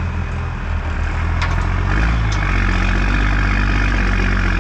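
Big plow truck's engine running under load, picking up in revs and growing louder about two seconds in, with two sharp clicks in between.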